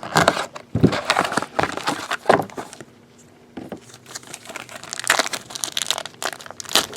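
Trading-card packaging crinkling and being torn open in irregular bursts, with a short lull about three seconds in.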